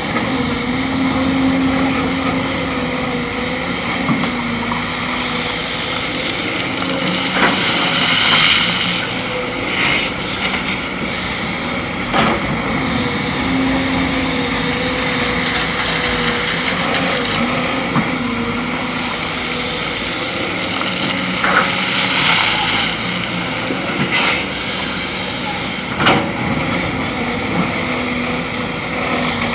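Kobelco SK200 excavator working: its diesel engine runs steadily while the hydraulics' high hiss swells several times under load, with a few sharp metallic knocks from the bucket and arm.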